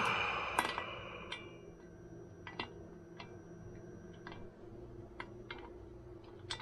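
Metal parts of a KitchenAid stand mixer being handled during repair: a ringing clink at the start that fades over about a second and a half, then scattered light clicks and taps.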